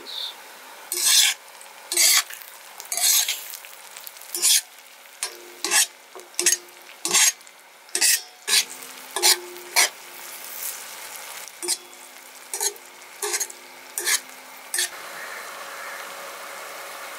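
Metal spatula scraping and stirring sliced onions and garlic on a large flat metal griddle (tawa), in quick strokes one or two a second, over a steady sizzle of frying oil. The strokes stop about 15 seconds in, leaving only the sizzle.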